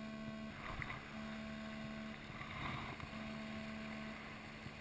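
Shallow rocky stream rushing over stones. A faint hum comes and goes, about a second on and a second off, with some light handling noise in between.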